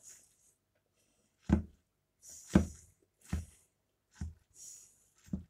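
A plastic fork stirring instant noodles in a paper pot, making five dull knocks about a second apart with short hissing sounds between them.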